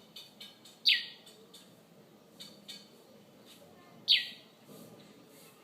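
A bird calling: two loud, brief calls, each a sharp downward sweep in pitch, about three seconds apart, with softer short chirps between.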